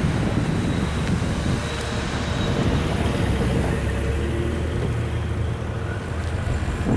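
Autorack freight train rolling past, a steady rumble of steel wheels on the rails with faint steady tones above it.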